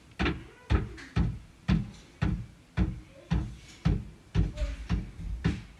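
A horse pawing at the side of a car with a front hoof, a steady run of heavy thumps on the car body, about two a second.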